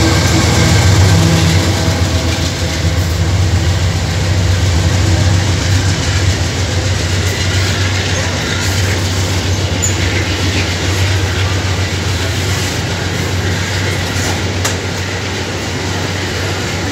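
An empty iron-ore train rolling past. The engine hum of its second diesel-electric locomotive, a Wabtec, fades over the first couple of seconds, then empty steel ore gondolas go by with a continuous rumble of wheels on rail and occasional clicks over rail joints.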